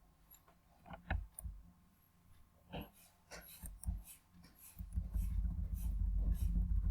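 Scattered light clicks and scratches of a pen writing. About five seconds in, a steady low rumble starts and is the loudest sound.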